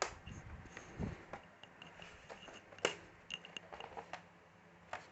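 Clicks and light knocks of a Dell Latitude E6430's bottom cover being handled and fitted back onto the laptop base, with the sharpest click just under three seconds in.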